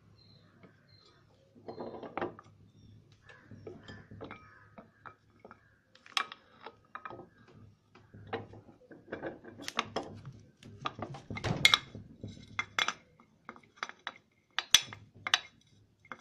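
Metal parts of a ceiling fan being handled: irregular clinks, taps and light knocks, some with a brief metallic ring. They grow busier and louder partway through, with a few sharp clicks near the end.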